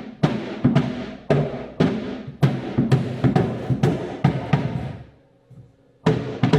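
Repeated loud blows on a hollow wooden cabinet panel, knocking a cut-out section loose, about two strikes a second with a short pause about five seconds in.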